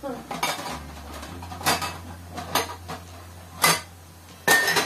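Glass jars knocking and clinking against each other and the aluminium pot as they are squeezed in to steam-sterilise. About five separate knocks, the loudest near the end with a brief glassy ring.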